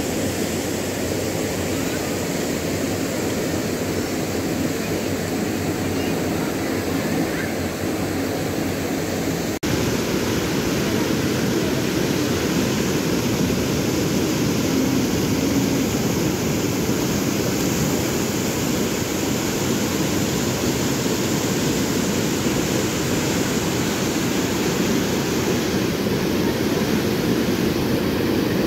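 River swollen by heavy rain rushing through turbulent rapids and pouring over a low weir: a steady, loud rush of water. There is a brief break about ten seconds in, after which the rush is a little louder.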